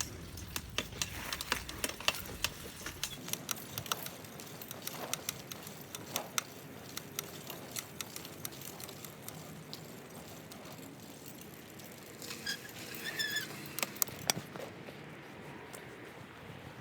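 Irregular light clicks and rattles, with a short run of high chirps or squeaks about thirteen seconds in.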